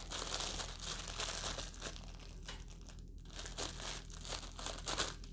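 Packaging crinkling and rustling in irregular bursts as it is handled and opened to take out a small plastic mouthpiece.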